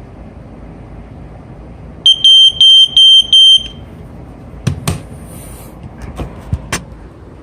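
Sears 302.57475 smoke alarm's horn sounding on test: four loud, high-pitched beeps in quick succession about two seconds in. A few sharp clicks follow.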